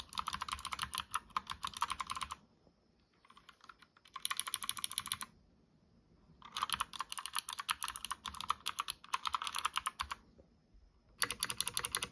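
Mechanical keyboard with Kailh Box White click-bar switches being typed on in quick bursts of sharp, crisp clicks, with short pauses between bursts.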